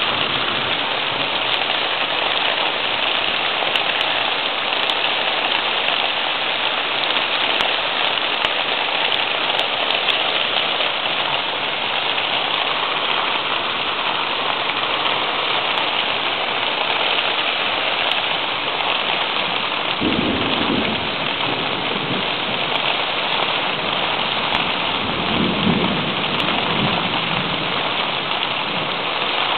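Steady rain in a thunderstorm, with two low rolls of thunder about two-thirds of the way through, a few seconds apart.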